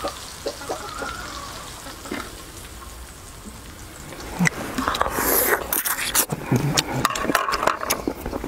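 Crackly, sticky clicks and rustles of cooked chicken wings being handled, faint at first, then louder and busier from about halfway through.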